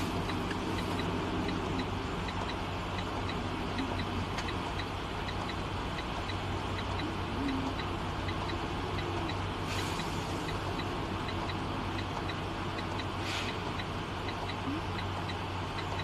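Cab ambience of a parked semi truck: a steady low hum with a faint, regular tick a little over twice a second, and two short hisses about ten and thirteen seconds in.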